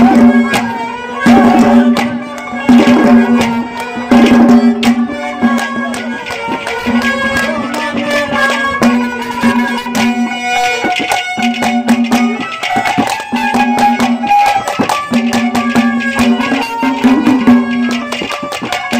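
Instrumental interlude of live Haryanvi ragni folk music: hand drums beating a quick rhythm under a melody line and a repeated held low note.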